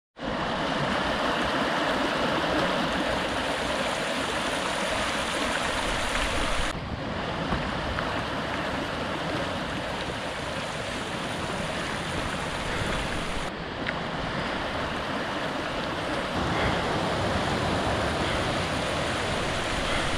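Shallow, fast-flowing mountain stream running over stones: a steady, even rush of water.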